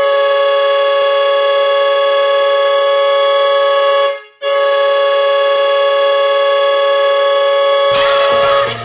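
The Woodstock Navy Vets' hockey goal horn sounding a loud, steady chord in two long blasts of about four seconds each, split by a brief break. A noisier sound comes in under the end of the second blast.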